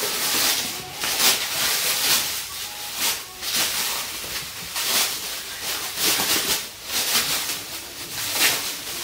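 Black plastic wrapping being pulled apart and unwrapped by hand, crinkling and rustling in irregular bursts.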